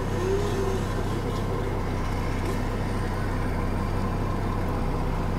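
An engine idling steadily, a constant low hum with no change in speed.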